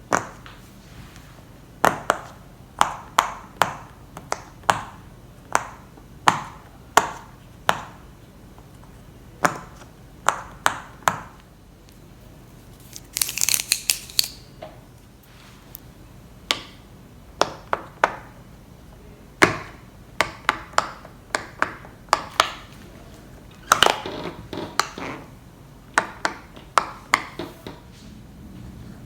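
Hand-held fidget toys clicking and snapping: sharp, irregular clicks, sometimes in quick pairs or runs, with a brief high rattling flurry about halfway through.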